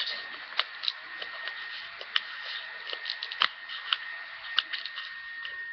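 Sharpie marker writing on a taped paper label, a run of small irregular scratches and clicks, with a steady high whine underneath.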